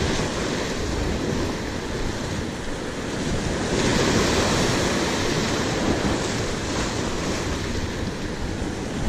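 Sea surf breaking and washing over rocks, with wind buffeting the microphone. The surf swells louder about four seconds in.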